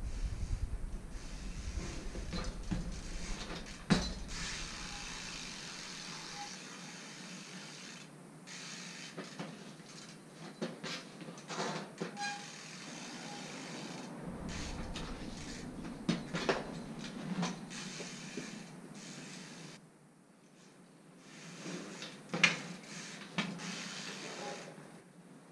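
Trials bike being ridden and hopped on brick paving: sharp knocks as the wheels land, with lighter clicks and rattles in between. A low rumble underneath comes and goes.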